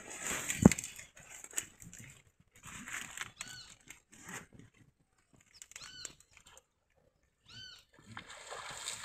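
A cast net being hauled in by hand, with a sharp knock about a second in and faint rustling. A short rising-and-falling animal call sounds three times, a couple of seconds apart.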